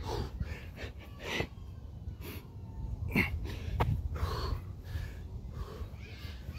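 A man breathing hard mid-workout: repeated heavy, wheezing huffs and gasps of breath, a few of them sharp and loud, from the exertion of non-stop burpees.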